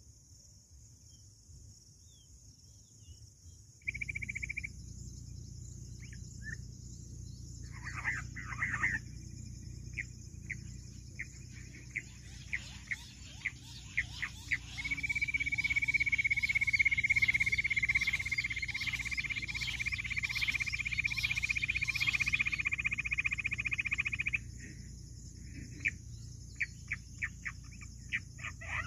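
Jungle bush quail calling: scattered sharp chirps and rapid ticking notes, then one long fast trill held steady in pitch for several seconds about halfway through, over a steady high insect hiss. The sound comes in suddenly about four seconds in.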